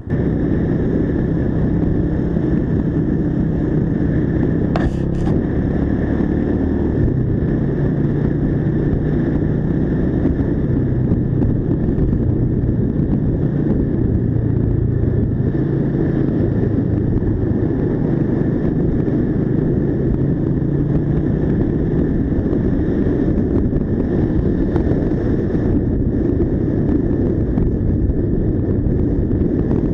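Mash Cafe 400 single-cylinder motorcycle engine running while being ridden, heard from the rider's position. The engine note steps up and down several times as the rider shifts and changes speed. Two short clicks about five seconds in.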